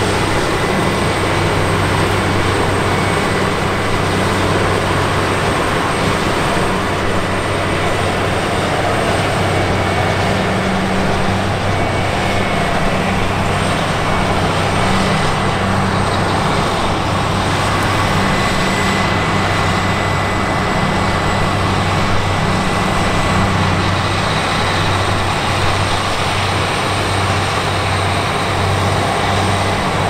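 Claas Lexion 750 Terra Trac combine harvester running under load while harvesting grain: a steady, loud engine drone with a dense mechanical rush over it and thin constant whines high above.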